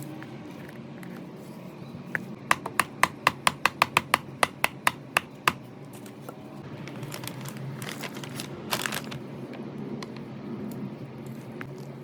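A quick run of about a dozen sharp clicks, three or four a second, then a short rustling burst a few seconds later, over a steady low hum.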